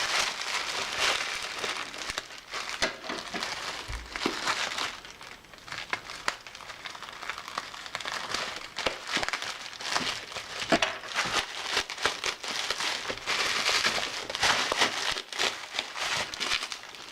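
Parcel packaging being unwrapped by hand: continuous crinkling and rustling with scattered small clicks and knocks, easing off briefly about five seconds in.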